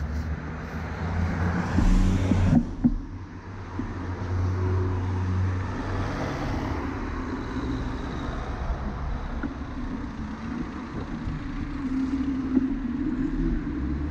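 Road traffic noise at a city intersection: a steady low rumble of car engines and tyres, louder for the first couple of seconds and dropping off sharply about two and a half seconds in.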